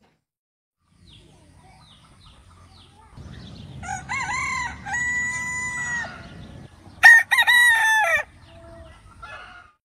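A rooster crowing twice, about three seconds apart, the second crow louder.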